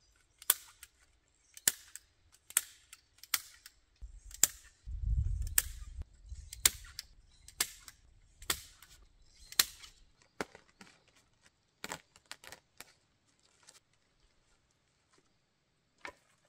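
Sharp, hard knocks, roughly one a second, thinning out and fading in the last few seconds.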